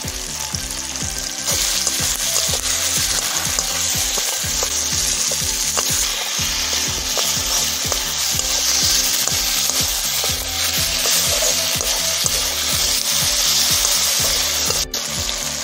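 Chopped onion, tomato, green chillies and capsicum, freshly dusted with turmeric and salt, sizzling in hot oil in an aluminium karahi. A wooden spatula stirs and scrapes them against the pan in quick strokes. The sizzle grows stronger about a second and a half in.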